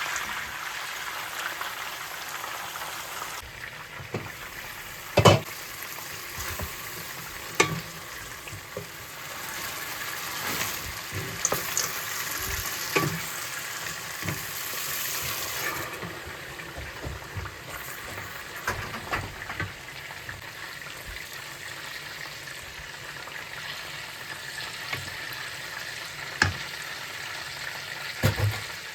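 Food sizzling in a frying pan, a steady hiss, with a utensil stirring and knocking sharply against the pan several times.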